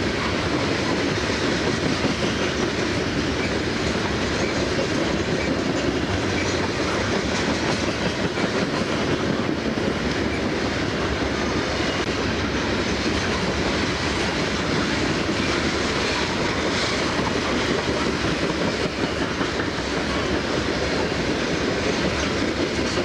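Freight train of CSX coal hopper cars rolling past close by: a steady, unbroken rumble of steel wheels on the rails.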